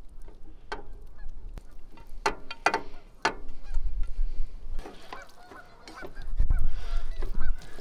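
A flock of geese honking repeatedly, many short calls overlapping, with a few clicks and gusts of wind rumbling on the microphone.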